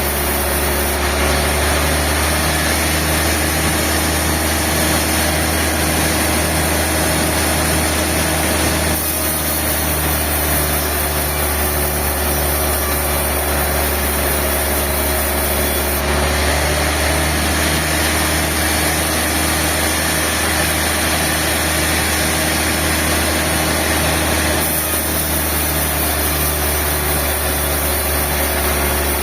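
Sawmill machinery running with a steady mechanical drone and a fast regular pulse underneath, shifting abruptly in tone a few times.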